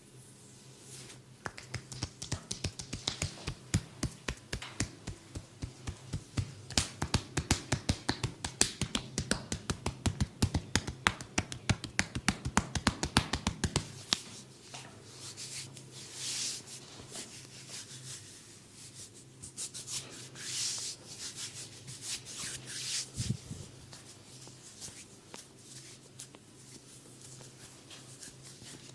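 Massage hand strikes on a person's back: a fast run of quick percussive chops and slaps, several a second, which stops about halfway through. Then slower palms rubbing and swishing over the skin, with one heavier thump near the end.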